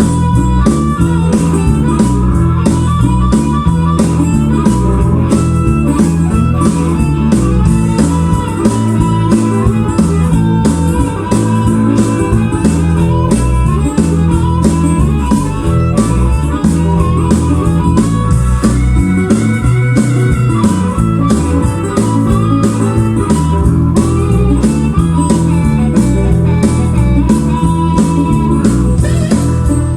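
Instrumental blues-style track with guitar over a steady beat, played back through a vintage 1970s stereo receiver and speakers.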